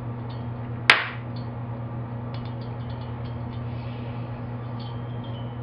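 A single sharp metallic clink about a second in, then a few faint light clicks, as the cylinder is worked off a Stihl S10 chainsaw engine on the bench. A steady low hum runs underneath.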